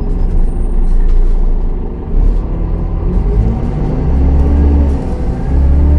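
MAN D0836 six-cylinder diesel of a Solaris Urbino 10 II city bus with a ZF 4HP502 automatic gearbox, running under way with a low rumble; its engine note rises and falls several times.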